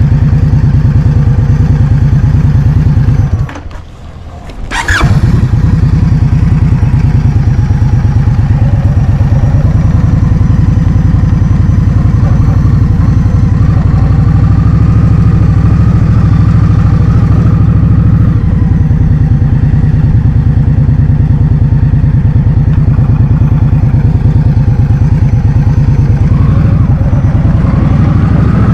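Heavy wind buffeting the microphone of a moving scooter rider, a loud low rumble, with the scooter's engine note faintly rising beneath it at times. The rumble drops out briefly about four seconds in.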